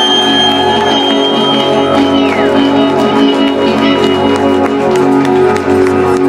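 Live band music without vocals: sustained droning chords with a high whistling tone that slides down about two seconds in.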